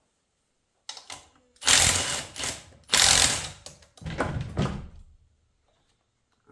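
Power tool run in four bursts of about half a second to a second each, backing out 12 mm bolts on a Hyundai/Kia 8-speed automatic transmission case.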